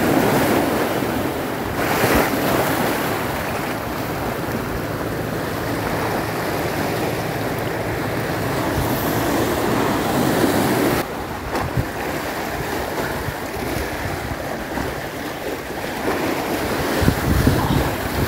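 Sea waves washing in with wind buffeting the microphone: a steady, fairly loud rush of noise that drops suddenly about eleven seconds in.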